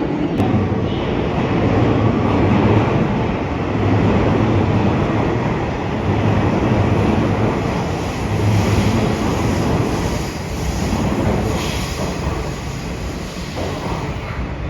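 Electric commuter train running along a station platform: a steady rumble of wheels on rails, easing a little near the end.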